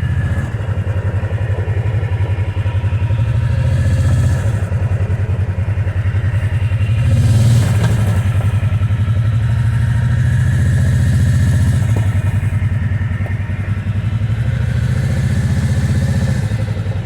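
Off-road utility vehicle's engine running at low speed while manoeuvring, with the throttle swelling and easing off a few times.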